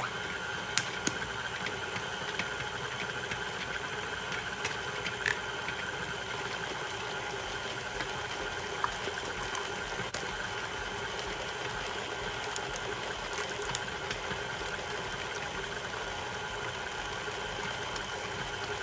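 A KitchenAid Ultra Power stand mixer switched on and running steadily, its flat paddle beater churning a creamy sugar paste in a stainless steel bowl, with a few light clicks. This is the creaming stage of sugar cookie dough, just before the eggs go in.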